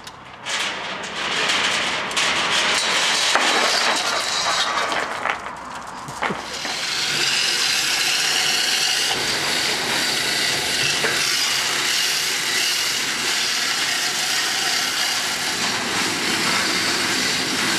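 Steel chain of a hand-operated chain block hoist rattling and clinking, then from about seven seconds in a steady, fast clatter as the hand chain is hauled through the hoist.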